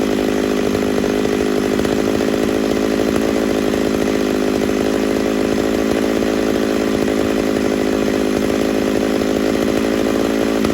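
Ported Homelite Super XL-925 82cc two-stroke chainsaw running at full throttle at a steady pitch, held down under load with its 28-inch bar buried in red oak.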